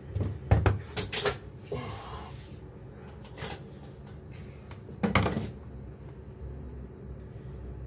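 Scattered clicks and knocks of hands handling and twisting the stripped ends of electrical wire: several in the first second and a half, one midway, and a louder one about five seconds in.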